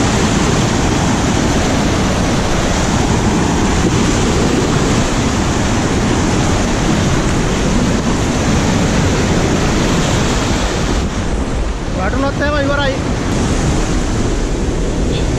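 Loud, steady rush of a rain-swollen mountain stream pouring over rocks.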